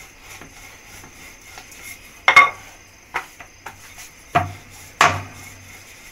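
Wooden rolling pin rolling chapati dough on a round wooden board, with a handful of sharp wooden knocks as the pin and board bump, the loudest a little over two seconds in and again about five seconds in.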